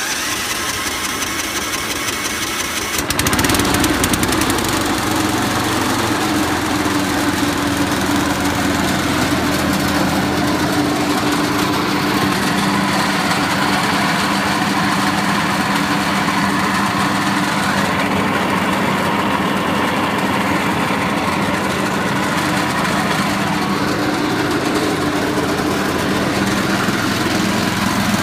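Small gasoline engine on a Vermeer AE12 mud mixing system running, at a lower speed at first, then throttled up about three seconds in and running steadily at speed, driving the pump that jets water through the mixing tank.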